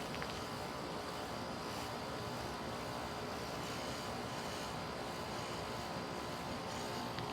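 2017 Bryant Legacy Line heat pump outdoor unit running steadily in its defrost cycle, a constant noise with a faint hum of steady tones.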